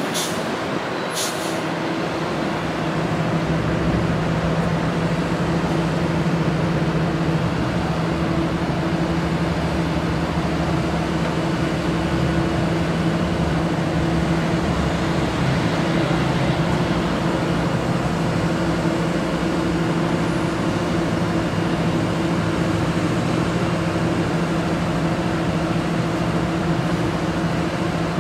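Truck engine running with the hydraulic system of a Hi Ranger 5TC-55 aerial lift working the boom: a steady mechanical hum with a held tone that sets in about two seconds in, just after a click.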